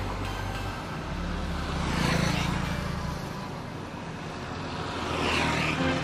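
Road traffic: a steady low rumble, with two vehicles passing by, one about two seconds in and another near the end.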